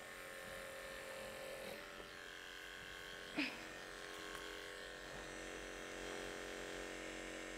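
Liveryman Harmony Plus horse clippers running with a steady electric buzz as they shave a pony's coat. There is one brief short sound about three and a half seconds in.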